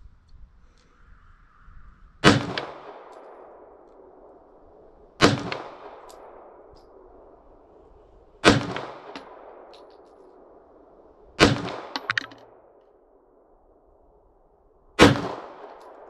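Five pistol shots fired slowly, about three seconds apart, each followed by a ringing echo that fades over a second or two.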